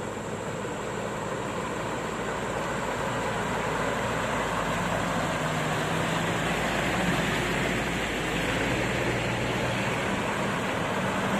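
Four-wheel-drive pickup trucks crawling through deep mud, their engines running under load. The sound grows louder as the trucks come close.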